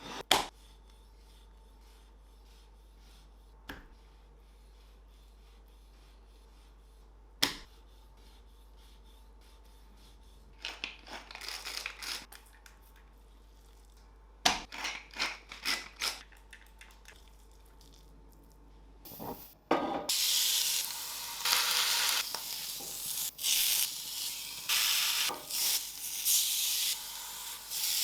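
Kitchen preparation sounds: a few sharp knocks, then short bursts of scraping or rustling. About two-thirds of the way through, a steady sizzle of food frying in hot oil starts and keeps going.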